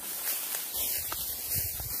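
Footsteps pushing through tall grass and brush, with stalks and leaves rustling and a few dull low thuds near the end.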